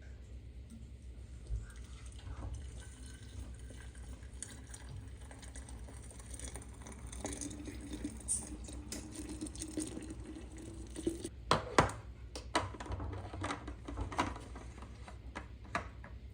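Liquid poured into a container, with a faint tone rising in pitch as it fills, followed by several sharp clicks and knocks, over a steady low hum.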